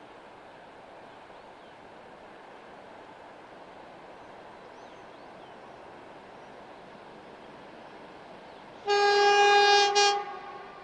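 2TE116 diesel locomotive sounding its air horn: one loud blast of about a second near the end, cut by a brief break and a short final toot, over a steady background rumble.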